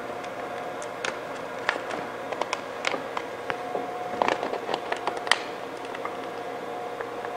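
Chrome vinyl wrap film being pressed and worked by hand onto a grille: an irregular run of small crackles, taps and scrapes, over a faint steady tone.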